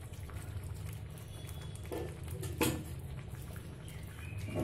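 Kalai dal with bottle gourd leaves simmering in an open pan, with faint bubbling and crackling over a steady low rumble. There is a sharp clink a little over halfway through.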